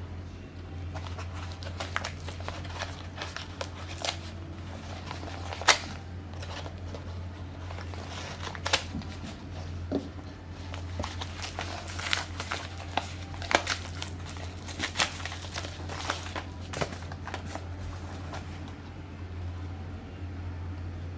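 Medicine packaging being handled and unboxed: irregular crinkling, rustling and sharp clicks, over a steady low hum.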